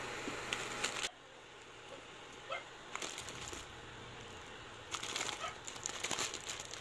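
A steel pot of instant noodles at a rolling boil, making a bubbling hiss. The hiss drops away suddenly about a second in and comes back near the end. A few faint bird chirps sound in the quieter stretch between.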